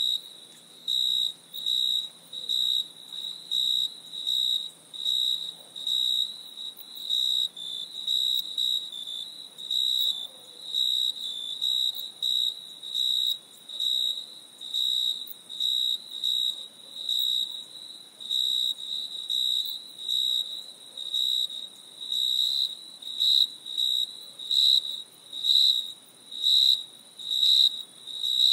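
Cricket chirping: a high, steady-pitched tone repeated in even chirps, each about half a second long, a little more than once a second.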